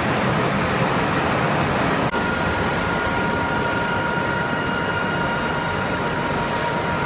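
Running machinery on a gear factory's shop floor: a loud, even mechanical din. About two seconds in, a steady high whine of two tones joins it.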